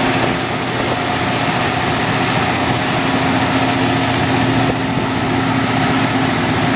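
Caterpillar 900 kW diesel generator set running at a steady speed, a loud, even engine drone with a constant hum.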